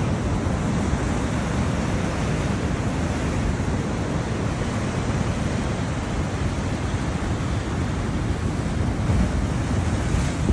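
Rough surf churning and breaking against the seawall below, a steady wash of foaming water, with wind rumbling on the microphone.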